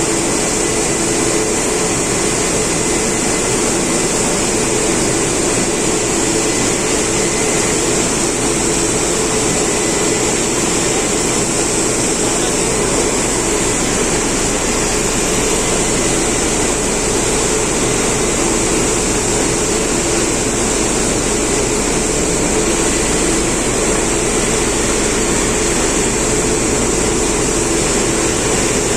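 Flour mill running together with its large dust-extraction vacuum cleaner, which sucks up flour where it comes out of the mill: a loud, steady machine hum with a hissing rush of air and no change in pitch or level.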